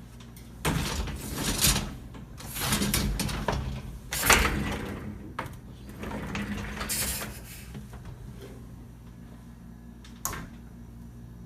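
Handling noises: four bursts of sliding and rattling over the first seven seconds or so, then one short knock near the end.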